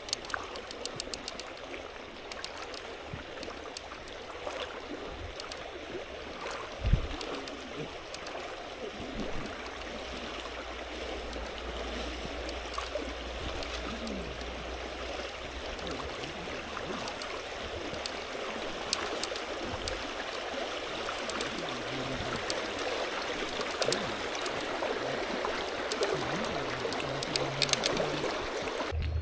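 Creek water running and rippling steadily, with a single dull thump about seven seconds in.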